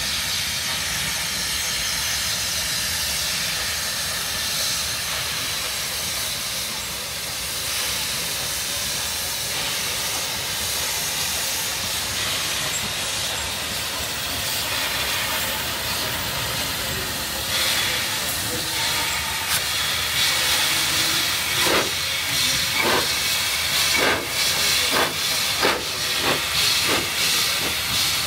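Narrow-gauge Puffing Billy steam train working hard: a steady hiss of steam, then, from about two-thirds of the way in, slow exhaust chuffs that grow louder and sharper as the locomotive comes closer.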